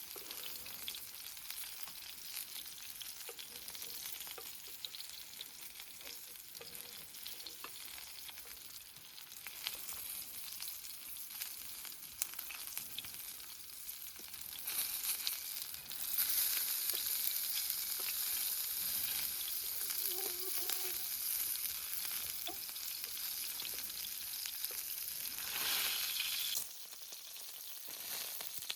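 Food sizzling and crackling in a frying pan, with a steady high hiss. It grows louder about halfway through and drops off suddenly near the end.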